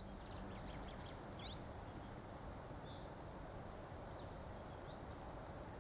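Faint outdoor ambience: a steady low background hiss with scattered short bird chirps.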